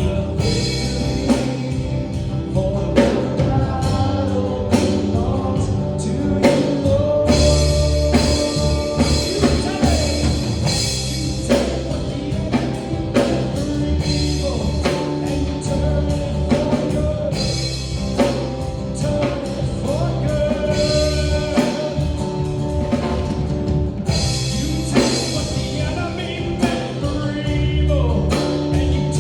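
Live worship band playing a rock-style song: drum kit with a steady beat, guitar and singing.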